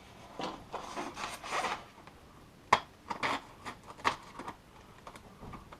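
Packing material being handled while small parts are worked loose: rubbing and rustling for the first couple of seconds, then a sharp click a little under three seconds in and a few lighter clicks after it.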